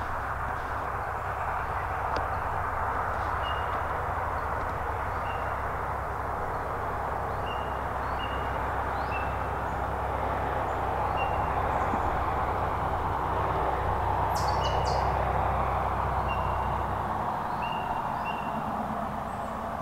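Steady hiss and low rumble of traffic on a nearby road, swelling a little about two thirds of the way through, with a small bird giving short single chirps every second or two.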